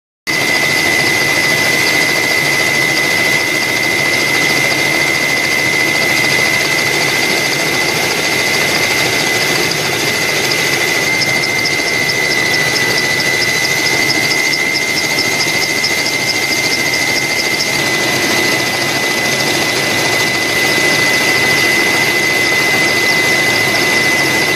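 Loud, steady engine roar with a constant high whine running through it, starting abruptly.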